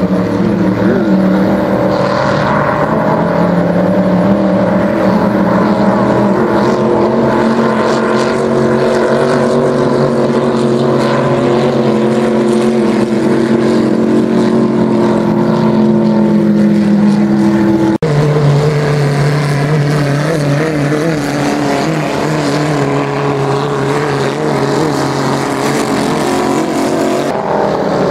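Vintage hydroplane race boats' big-block engines with open exhaust running hard at speed, a loud, steady engine note whose pitch slowly falls. About two-thirds of the way through it cuts suddenly to another boat's lower, rougher engine note.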